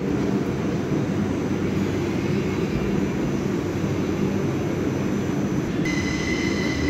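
CRRC light-rail tram running, a steady rumble of motors and wheels on the rails. About six seconds in, a high steady whine joins it.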